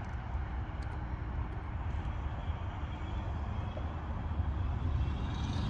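Steady low outdoor rumble, with a few faint ticks from a Lishi pick being worked in a car door lock.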